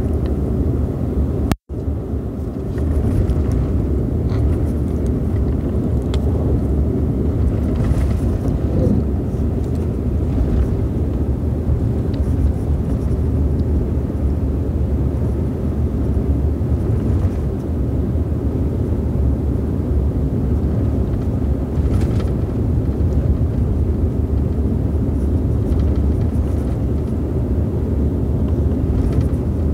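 Steady road and engine rumble of a moving vehicle, heard from inside as it drives along. It drops out for an instant about a second and a half in.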